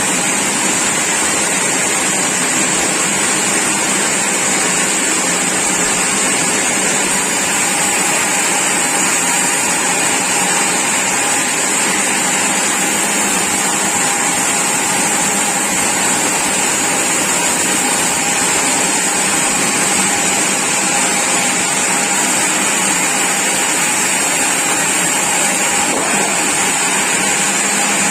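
Sawmill machinery running continuously at a steady, loud level with a strong high-pitched hiss.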